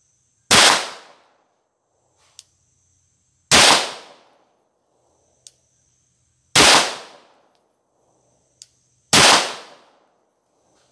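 Four shots from a semi-automatic pistol in slow, aimed fire, about three seconds apart, each a sharp report that dies away within half a second. A faint single click comes between shots: the trigger resetting as the finger eases it forward without leaving it.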